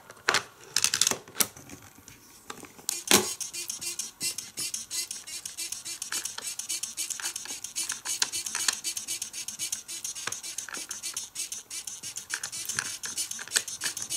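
Plastic parts of a Hot Wheels Color Shifters Color Blaster toy playset worked by hand: a few sharp plastic clacks in the first few seconds, then quick, steady clicking with a light hiss as the car is sprayed with water and changes colour.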